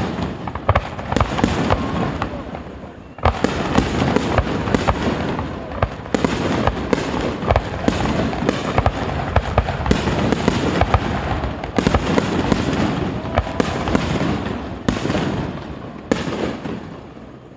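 Fireworks display going off close by in a rapid barrage: many sharp bangs and pops over continuous crackling, with a brief lull about three seconds in, fading away near the end.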